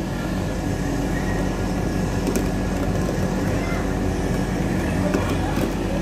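Steady low rumble and hum of a vehicle, with a few faint clicks.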